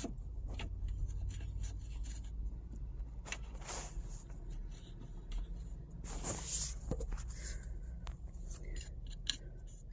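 Small scrapes, rubbing and light clicks of fingers threading the retaining nut onto a key start switch barrel, over a faint steady low hum.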